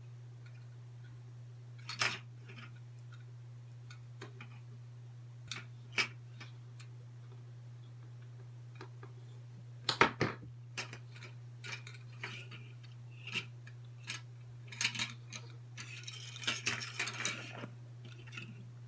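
Scattered sharp clicks and taps of cheap plastic headphone parts being handled and pried apart, with a quicker run of clicking and scraping near the end, over a steady low hum.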